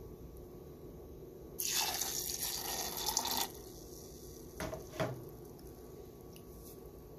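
Water poured into a glass blender jar of soaked millet, urad dal and rice for about two seconds, starting a second and a half in, followed by two light knocks.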